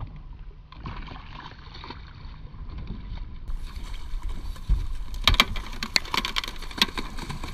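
Atlantic sharpnose shark thrashing in a landing net at the side of a boat. From about halfway there is a run of sharp splashes over a low rumble of wind and water.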